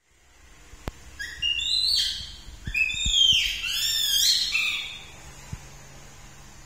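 A young pet monkey squealing: a string of high-pitched, whistle-like cries that slide up and down in pitch for about four seconds, with a few soft knocks.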